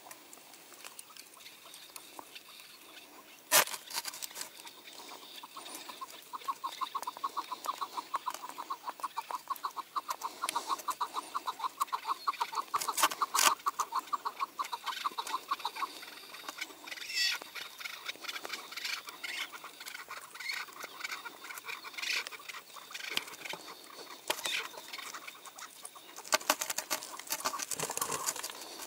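Chukar partridge calling: a long run of rapidly repeated notes that starts about six seconds in and fades after about ten seconds, followed by scattered higher calls. There are two sharp clicks, one a few seconds in and one midway.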